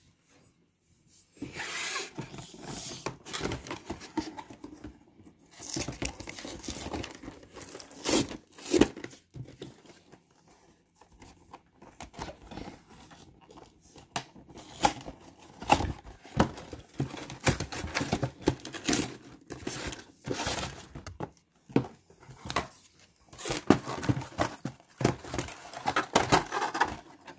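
Cardboard packaging of a trading-card collection box being torn open and its clear plastic blister tray handled: irregular tearing, crinkling and rustling with sharp clicks, starting about a second and a half in.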